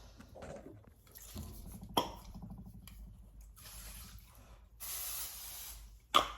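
Kitchen tap running in short spurts, three separate runs of about a second each, with two sharp knocks between them.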